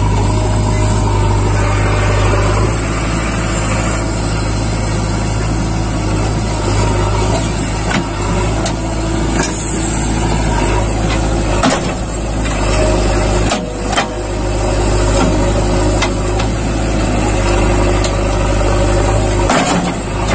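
A JCB 3DX backhoe loader's diesel engine runs steadily under load while the backhoe arm works, with a few sharp clunks along the way.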